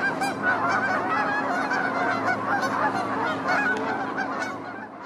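A flock of geese honking, many overlapping calls at once in a continuous clamour, fading out at the very end.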